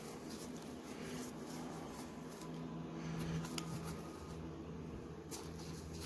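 Faint handling noise of a stack of 1991-92 Pro Set hockey cards being thumbed through in the hand, with a few light clicks as cards flick past, over a steady low room hum.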